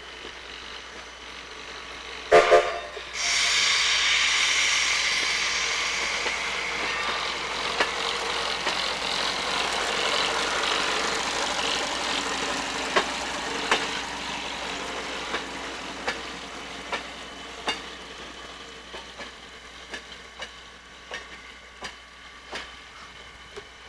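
Sierra Railway No. 28, a 1924 Baldwin steam locomotive, gives two short whistle toots, then a loud hiss of steam that slowly fades. After that comes a string of sharp knocks about once a second.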